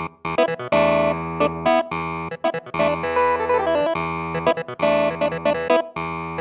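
A Nord Electro 6D stage keyboard being played: a few short, clipped chords, then longer held chords that change every one and a half to two seconds.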